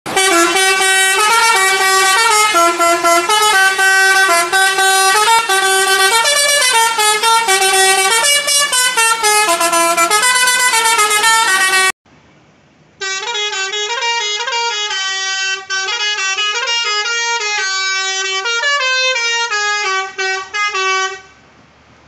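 Indonesian tour bus 'telolet' basuri musical horns playing a melody of quick stepped notes. The tune runs for about twelve seconds, breaks off, and a second horn tune follows for about eight seconds.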